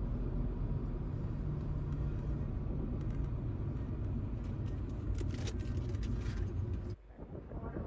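A steady low rumble with a few sharp clicks about five seconds in, cutting off suddenly about a second before the end.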